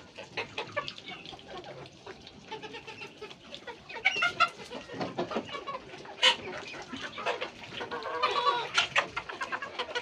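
A flock of chickens clucking, with louder pitched calls about four seconds in and again near the end.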